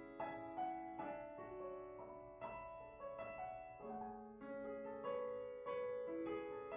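Background piano music: a calm melody of struck notes and chords, a new note about every half second.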